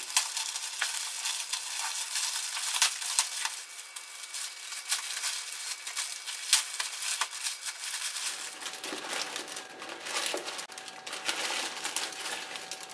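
Gift-wrapping paper crinkling and crackling as a small present is unwrapped by hand, a dense run of sharp crackles.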